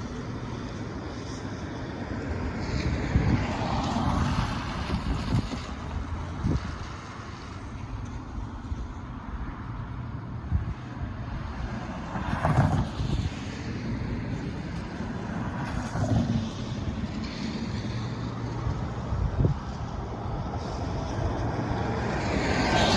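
Road traffic: cars and trucks going by one after another over a low steady rumble, each pass swelling and fading.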